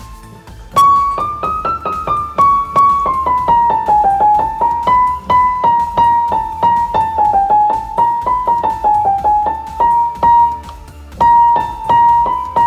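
Steinway & Sons grand piano played one key at a time in the treble. Single notes come about three to four a second, stepping up and down by small steps, with a short pause near the end before a few more notes. Each note is being compared with the next to hear differences in tone, as a check during hammer voicing, so that uneven notes can be marked.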